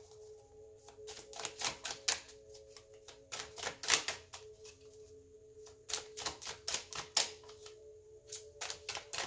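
Tarot cards being shuffled by hand: quick runs of light clicks and slaps as the cards riffle and pat against each other, in bursts with short pauses, the loudest about four seconds in. A soft steady background tone sounds throughout.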